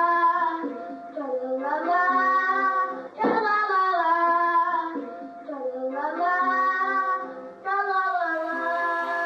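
A four-and-a-half-year-old boy singing a made-up song on an old home tape recording, in several long held phrases with short breaks between.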